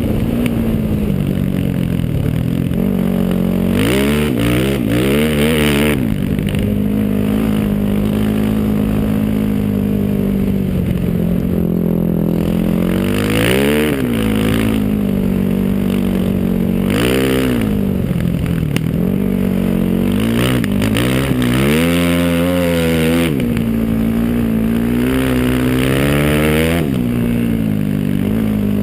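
Single-cylinder sport quad engine running under load, its pitch climbing and dropping several times as the throttle is worked, with sharp rev-ups about 4, 13, 17 and 22 seconds in.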